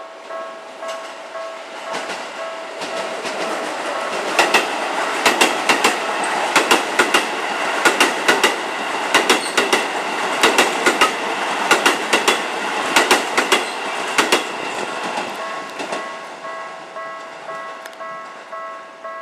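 Electronic level-crossing alarm with a Tokyu-style warning tone ringing in a steady repeating pattern, then a Keisei Main Line train passing close by. Its wheels clatter over the rail joints in quick pairs for about ten seconds and drown out the alarm, which is heard again near the end.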